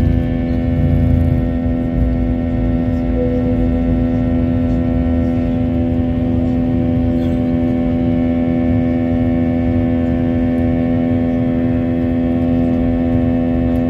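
Airliner cabin noise during the climb after takeoff: the engines drone steadily, a strong even hum with several steady tones over a low rumble that is a little heavier in the first second or so.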